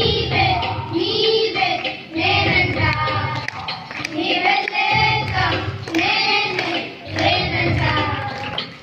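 A group of children singing a song together into microphones, in phrases with short breaks between them.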